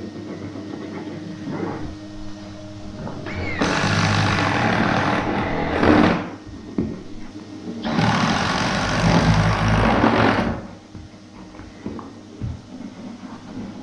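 Cylinder vacuum cleaner running steadily, its hose held at a hole in a chipboard floor to take up the dust. A cordless drill bores through the timber below in two bursts of a couple of seconds each, about four and eight seconds in.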